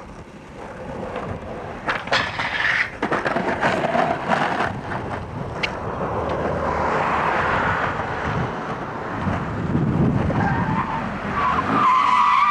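Skateboard wheels rolling on rough asphalt, a continuous gritty rumble broken by several sharp clacks of the boards. A short high squeal comes near the end.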